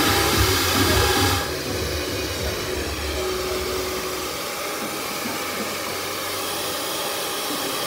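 Hand-held hair dryer blowing steadily, a rushing hiss. It is louder for about the first second and a half, then drops suddenly to a softer even rush.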